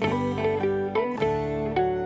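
Background music: a light melody of plucked string notes, each starting crisply, about two or three notes a second.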